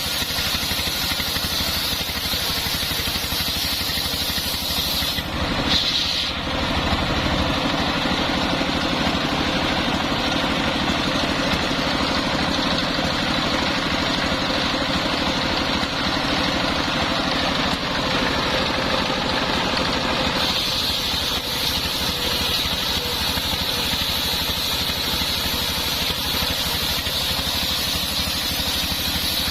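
Engine-driven homemade circular sawmill running steadily. Its tone changes briefly about six seconds in and shifts again around twenty seconds in.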